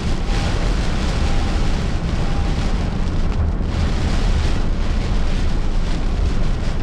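Tropical-storm wind and rain noise: a loud, steady rush with heavy low rumbling buffeting.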